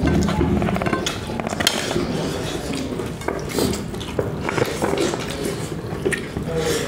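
Eating sounds: a spoon clinking and scraping on plates and hands working through rice, in short irregular clicks, with chewing.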